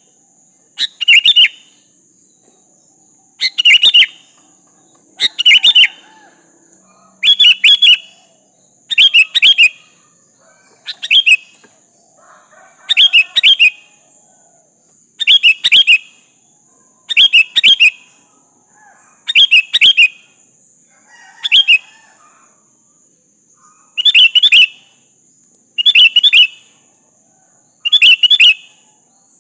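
Sooty-headed bulbul (kutilang) calling: short phrases of a few quick notes, repeated about every two seconds, over a steady high hiss.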